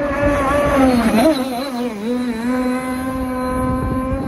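Zen 32cc two-stroke petrol engine of an RC speedboat running at speed. Its pitch wobbles and dips between about one and two and a half seconds in, then holds steady.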